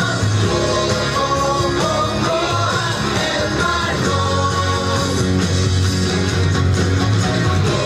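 Recorded song with a singer, played loud over a PA speaker as dance music.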